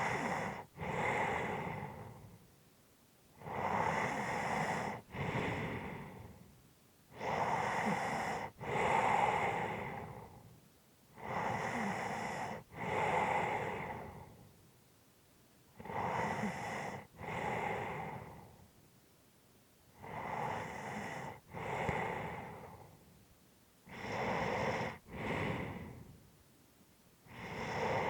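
A person breathing slowly and heavily in a steady rhythm, about one breath every four seconds. Each breath comes as two loud rushes of air with a brief break between them.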